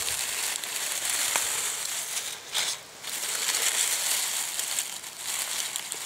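Dry fallen leaves and grass rustling and crackling as a hand works through them close to the microphone, with a short lull about two and a half seconds in.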